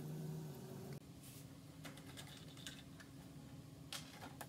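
Light scattered clicks and taps of plastic and wire parts being handled as a pedestal fan is taken apart, its blade and wire grille knocking together, with a sharper click near the end.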